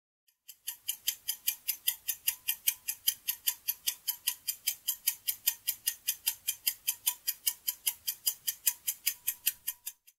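Clock-ticking sound effect counting down a quiz answer timer: fast, even ticks at about five a second, starting about half a second in and stopping just before the answer is revealed.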